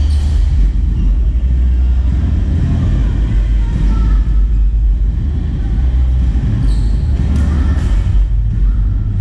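Badminton rally: a few sharp hits of rackets on the shuttlecock and short squeaks of shoes on the court, over a loud, steady low rumble and distant voices.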